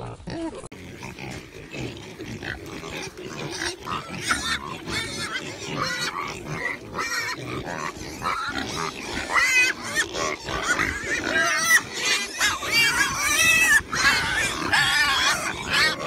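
A group of pigs grunting and squealing, many short calls overlapping, the high squeals coming thicker and louder through the second half.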